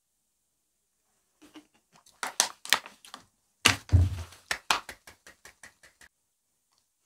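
Crackling and clicking of plastic being handled close to the microphone: a plastic water bottle and a small plastic packet. Scattered crackles, one heavier knock about four seconds in, then a run of quick small clicks that stops about a second before the end.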